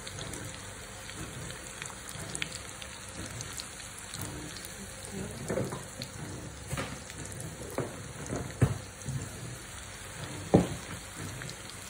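Food sizzling in a wok over a gas flame: a steady hiss, with a metal spatula knocking and scraping against the pan about five times, the loudest knocks near the end.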